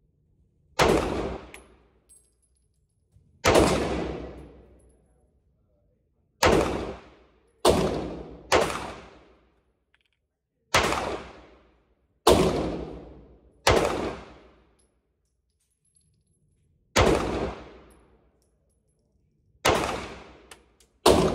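Bulgarian Makarov 9x18mm pistol firing about eleven single shots at an unhurried, uneven pace, one to three seconds apart. Each shot rings out in the reverberation of an indoor range.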